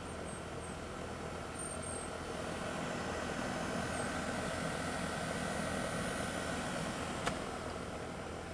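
Steady low rumble and hum like a distant engine or traffic, growing a little louder in the middle. A few faint high chirps near the start and one sharp click about seven seconds in.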